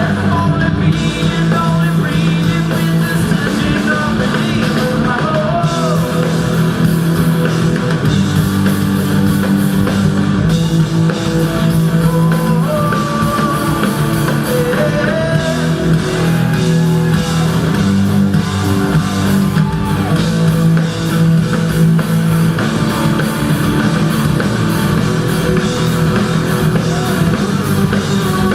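Live reggae-rock band playing loudly: electric guitar over drum kit and a steady bass line, with some singing.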